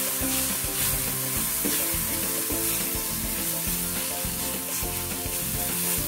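Chopped onion and spice seeds sizzling in hot oil in a stainless steel pan, stirred with a silicone spatula that scrapes across the pan bottom. The onion is being sautéed until translucent over a medium flame.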